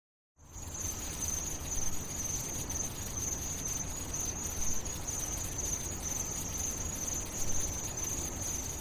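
Crickets chirping in a steady high trill over a low background hiss.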